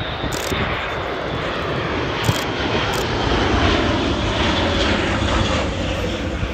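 Airbus A400M Atlas flying low past, its four turboprop engines and propellers making a loud, steady drone that builds to its loudest about halfway through as the aircraft comes overhead, then eases slightly near the end.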